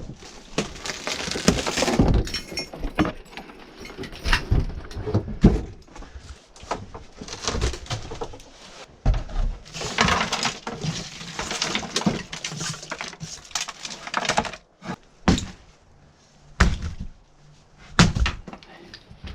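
Junk and debris being handled and tossed onto a load: irregular crashes, knocks and scraping, heaviest about two seconds in and again about ten seconds in.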